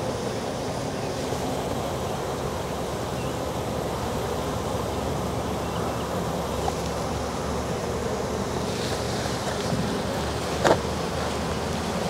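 Steady hum of a honey bee swarm: many bees buzzing around the cluster and the entrance of a nuc box they are inspecting but have not yet moved into. A brief louder sound about ten and a half seconds in.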